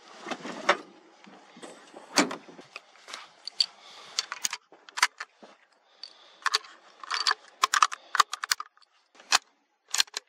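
Rustling and knocking as a scoped hunting rifle is handled, then a string of sharp metallic clicks and rattles as cartridges are loaded into its action.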